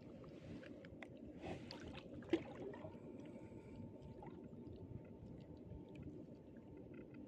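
Faint splashing and handling of a fishing net in shallow water, with scattered small clicks and one sharp knock about two seconds in.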